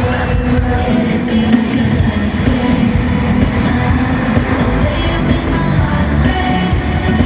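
Loud live K-pop performance over a concert sound system: a heavy bass-driven backing track with a singing voice over it.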